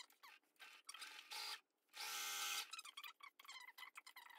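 Electric sewing machine stitching through waxed canvas in two short bursts of a steady motor hum, the longer one about two seconds in, with light clicks of fabric being handled between them.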